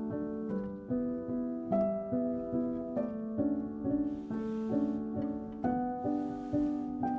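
Background music: a gentle plucked-string and piano melody with notes struck at an even pace, two to three a second.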